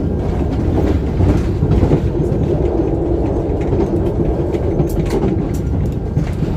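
Cabin running noise of a KTM ETS electric train travelling at speed: a steady low rumble of wheels on the rails, with a few sharp clicks about five seconds in.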